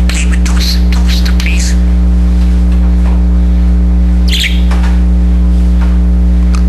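Budgerigar chirping and warbling in short squeaky bursts, two clusters with a pause between, over a loud steady electrical mains hum.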